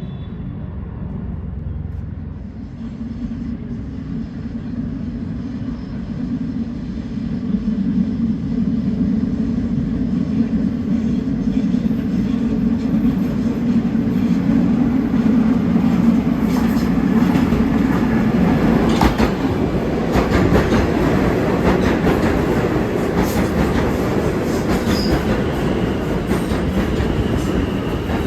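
R160 subway train approaching and running through the station, a low rumble and hum growing louder about a quarter of the way in, with the wheels clicking over rail joints in the second half.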